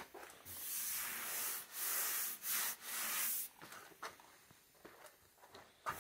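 Hand sanding on a car body panel over a repaired dent: about five rasping back-and-forth strokes, then quieter with a few light ticks in the second half.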